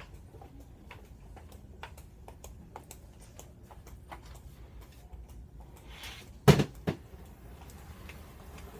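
Faint scattered clicks and rattles of plastic storage containers being handled, then two sharp knocks about six and a half seconds in, less than half a second apart, the first much louder.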